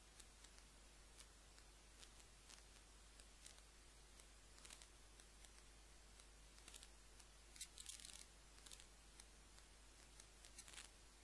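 Near silence: faint hiss and a low hum, with scattered soft clicks and crackles, a small cluster of them about two-thirds of the way through.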